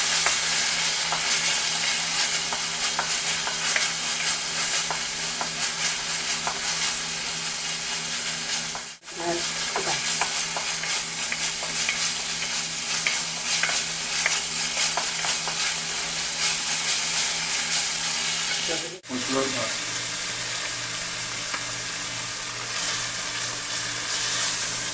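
Food frying hard in a hot pan, a steady loud sizzle with the clinks and scrapes of a utensil stirring it. The sizzle cuts out briefly twice, about a third and two thirds of the way through.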